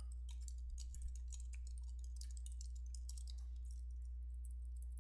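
Computer keyboard typing, a quick run of key clicks that thins out about three and a half seconds in, over a steady low hum.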